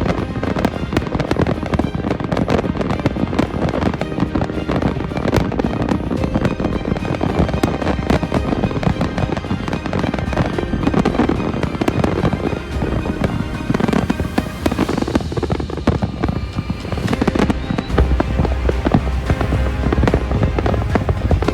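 A fireworks display: rapid, dense bangs and crackles of bursting shells, with music playing at the same time. The deep booms grow heavier near the end.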